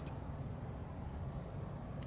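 Steady low rumble with a faint hiss: outdoor background noise.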